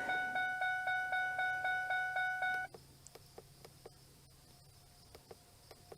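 Rapid electronic warning beeping, about four short beeps a second, which cuts off suddenly a little under halfway through. Faint, evenly spaced ticking carries on after it at about the same rate.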